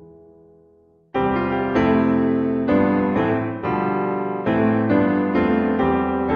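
Background piano music: a soft held chord fades out, then about a second in louder piano chords come in and change every half second or so.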